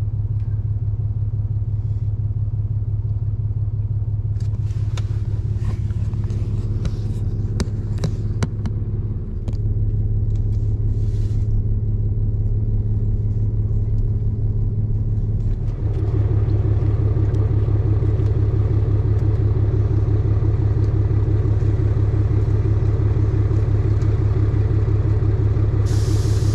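A motor vehicle running with a steady low engine drone and some scattered clicks. It gets louder about sixteen seconds in, as if it is speeding up or pulling harder.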